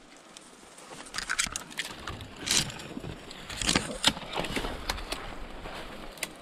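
Footsteps and branches rustling, brushing and snapping as someone pushes through dense conifer brush down a slope, with sharper cracks around two and a half and four seconds in.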